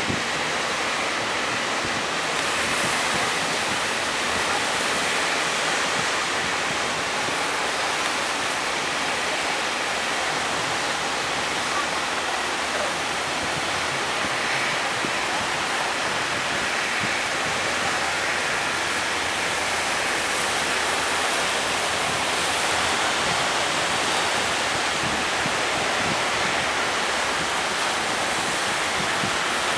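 Ocean surf breaking: a steady rush of waves without let-up.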